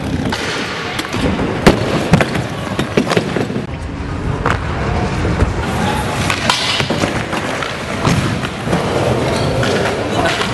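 Freestyle stunt scooter wheels rolling over wooden skatepark ramps, with sharp clacks and thuds as the scooter lands and clatters onto the wooden floor.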